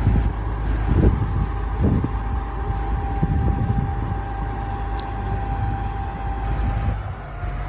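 The heavy engine of the barge crane running steadily, a low rumble with a thin steady whine that drops away about seven seconds in.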